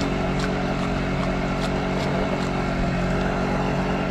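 A small engine running steadily at an even speed, with a light tick about two or three times a second.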